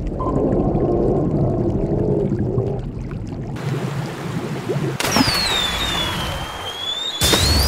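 A dinosaur roar sound effect, rough and wavering, for about the first three seconds. Then comes rushing water, with a high tone that slides down and back up, and a sudden loud whoosh near the end.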